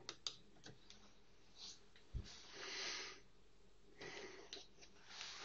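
Faint room tone with a few soft computer-mouse clicks in the first second, a low bump about two seconds in, and a breath drawn in close to the microphone just after it.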